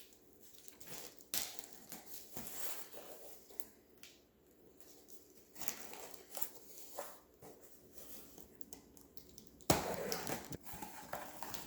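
A cardboard shipping box being cut open with a knife and unpacked: scattered scrapes, clicks and crinkling rustles of tape, cardboard and packing material, with a louder rustle near the end.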